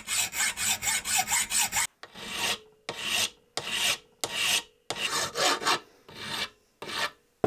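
A hacksaw cuts across a steel bolt held in a bench vise in quick, short strokes. After a brief pause, a metal file rasps across the bolt in slower, longer strokes, about two a second, to file down its wrench flats.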